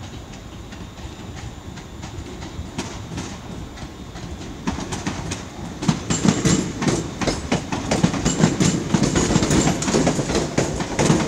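ScotRail electric multiple unit rolling past over the station pointwork, its wheels clattering over rail joints and points. The low rumble grows louder about halfway through, with a quickening run of sharp clacks as the carriages come close.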